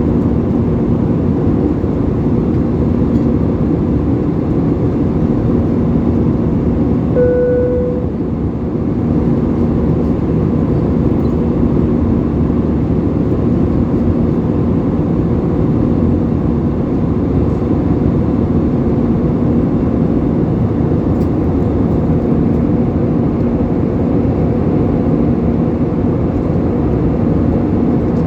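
Steady drone of engine and airflow noise inside an Airbus A320 cabin, with a constant low hum. About seven seconds in, a short single chime tone sounds.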